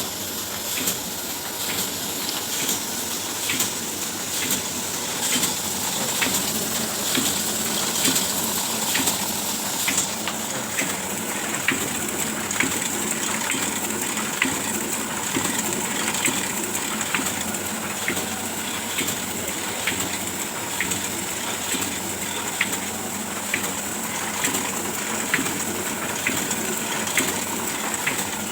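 Oliver 72 sheet-fed offset printing press running: a steady mechanical hiss and whir with a regular, even ticking, a little faster than once a second.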